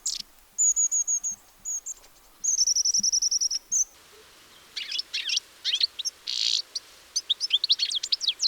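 Small songbirds singing. Two runs of quick, high repeated notes come in the first four seconds, then a busier song of rapid, varied twittering phrases.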